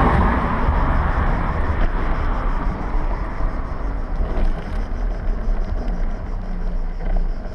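Steady rumble of wind buffeting the microphone and wheels rolling over concrete, picked up by a camera worn low on a moving rider's leg. It eases a little toward the end.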